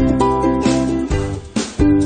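Background music: a cheerful plucked-string tune, strummed chords over a steady bass line.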